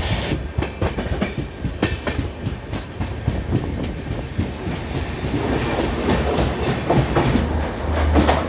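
Passenger train running, its wheels clicking rapidly and unevenly over rail joints over a steady low rumble.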